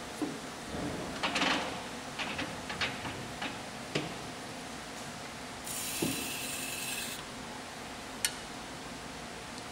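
Short metal clicks, knocks and scraping as the internal-grinding attachment of an Okamoto OGM-820UST cylindrical grinder is worked by hand, over a steady machine hum. About halfway through there is a hiss lasting a second and a half, and a single sharp click comes near the end.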